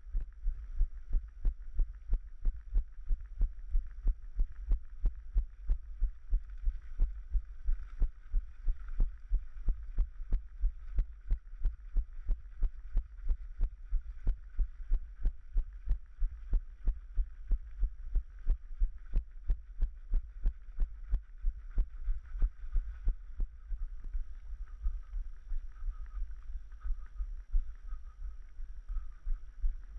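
Footfalls of a running trail runner, dull thuds at an even pace of about three a second, carried through the runner's own body-worn camera, over a faint steady hiss.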